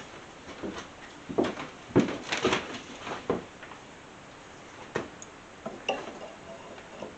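Irregular light metal knocks and clicks as a bent bolt shank chucked in a mini lathe is tapped and shifted to straighten out its wobble. The knocks cluster in the first few seconds and thin out to a few lighter clicks.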